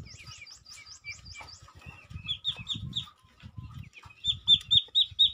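Ducklings peeping: short, high, falling peeps repeated several times a second, growing louder near the end.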